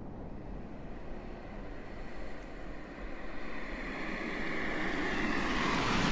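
A rushing noise with no clear pitch that swells and brightens over the last few seconds, then cuts off suddenly at the end.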